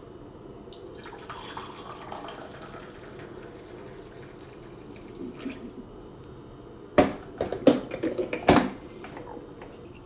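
Freshly brewed coffee poured from a glass coffee-maker carafe into a ceramic mug, a soft splashing pour lasting a couple of seconds. About seven seconds in come several sharp knocks and clinks, the loudest sounds here.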